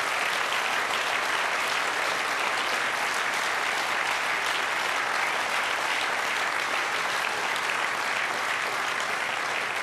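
An indoor crowd applauding steadily, a dense even clapping.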